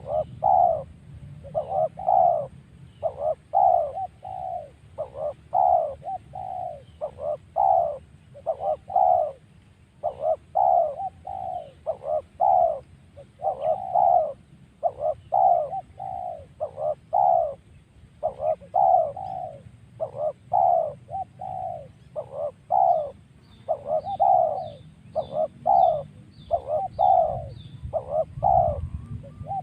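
A dove cooing over and over in short, quick groups of notes. Near the end a small bird gives a rapid run of high chirps.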